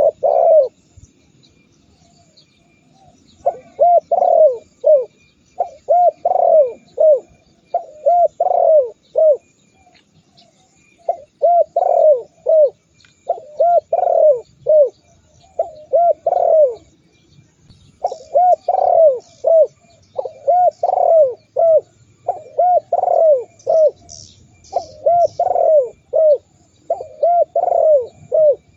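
Spotted dove (tekukur) cooing over and over, in phrases of three or four low notes repeated every couple of seconds, after a pause of about three seconds near the start. Faint high chirps from small birds come in around the middle and again about three-quarters of the way through.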